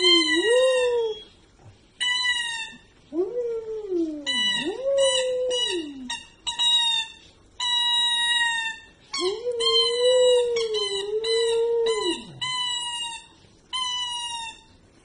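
A Samoyed howling in three long rising-and-falling glides, while a squeaky toy squeaks over and over in short, flat, high-pitched squeaks.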